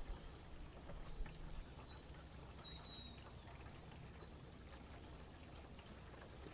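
A songbird singing one short whistled phrase that slides downward, about two seconds in, over a faint steady low outdoor rumble.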